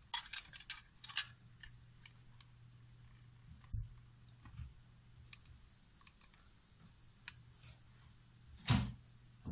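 Handling noise from a small plastic electronics enclosure and a screwdriver: a quick run of sharp clicks in the first second and a half, a knock near four seconds, scattered light ticks, and a louder rustling knock near the end. A steady low hum runs underneath.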